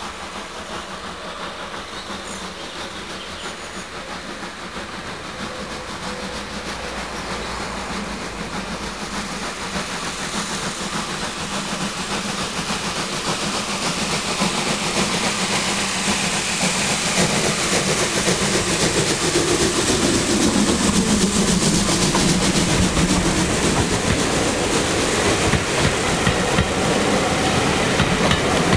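USA class 0-6-0 tank steam locomotive hauling a passenger train, growing steadily louder as it approaches. Near the end its coaches roll close past, wheels clattering over the track.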